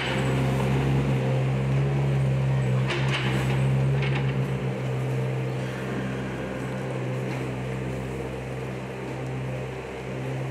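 A machine running steadily at an even speed, a low engine- or motor-like hum, with a couple of short knocks about three and four seconds in; it gets a little quieter toward the end.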